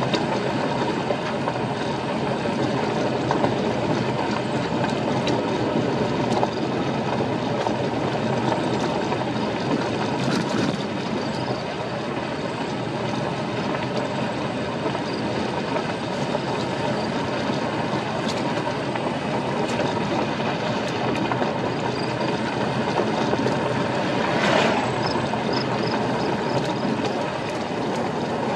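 Car tyres rolling over a gravel road, heard from inside the cabin: a steady, dense rumble of road noise, with a brief crackle of gravel near the end.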